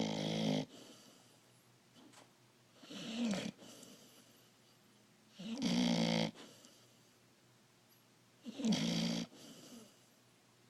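A puppy snoring in its sleep: short, rasping snores, each under a second long, coming regularly about every three seconds.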